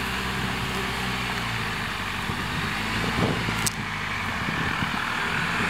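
A four-wheel drive's engine running steadily under a constant hiss, with one sharp click about two-thirds of the way through.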